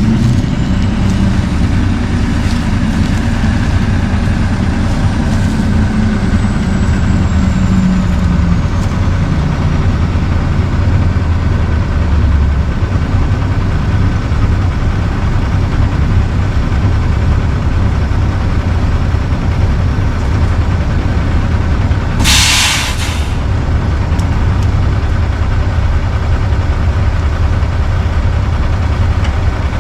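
Peterbilt 379 semi truck's diesel engine running steadily with a deep rumble. About 22 seconds in comes one short, sharp burst of air hiss from the truck's air brake system.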